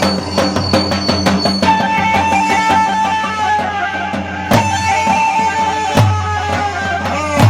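Choubi dance music. For about the first second and a half, a quick run of repeated notes plays. Then a high, reedy wind-instrument melody is held and wavers over drum strikes about every second and a half.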